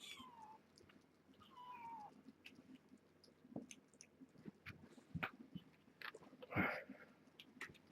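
Young kittens mewing: two thin, high calls that fall in pitch in the first two seconds. Then small scattered clicks and scuffles, with a brief louder rustle about six and a half seconds in.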